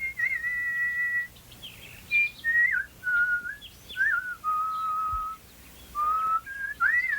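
Whistled bird-like tune of clear held notes, high and then lower, joined by short slides and quick warbles: the song of the clockwork nightingale.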